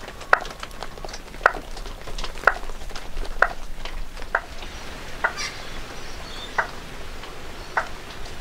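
Green tree frog calling from inside a drain pipe: a short, sharp call repeated about once a second, over a steady hiss of rain.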